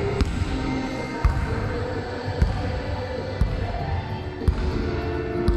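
Basketball bouncing on a wooden gym floor, single slow bounces about once a second, in a large sports hall.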